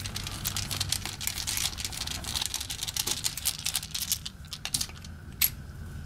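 A busy run of small metallic clicks and scrapes as a hand tool works on an opened padlock's body. They thin out after about four seconds, with one sharp click near the end.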